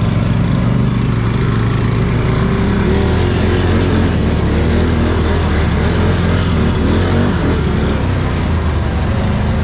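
Can-Am Renegade 1000 ATV's V-twin engine running under load while the quad wades through water. The revs are steady at first, then rise and fall for several seconds, over a constant rushing of churned water.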